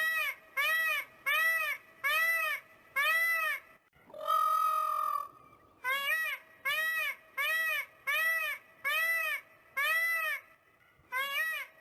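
Peacock calling in a run of short honks, each rising and falling in pitch, about one and a half a second. About four seconds in comes a single longer, flatter call, then another run of honks.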